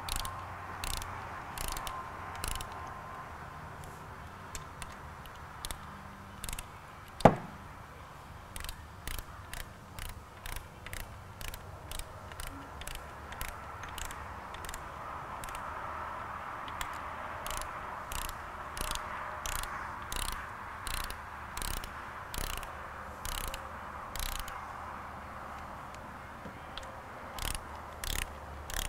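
Hand ratchet wrench clicking in short runs of strokes as the bolts of an NV4500 transmission's input shaft retaining collar are run down in a crisscross pattern. One louder sharp metallic click comes about seven seconds in.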